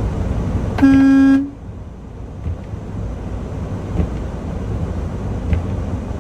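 One short blast of a semi-truck's horn, about half a second long, sounded to get a vehicle out of the way, over the steady low rumble of the truck running.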